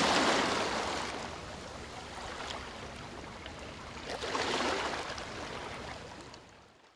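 Ocean surf: waves rushing and breaking in two swells, one at the start and a second a little after halfway, then fading out near the end.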